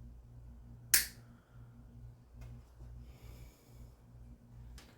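Cutters snipping a small piece off a plastic zip tie: one sharp snap about a second in, then another sharp click near the end, over a steady low hum.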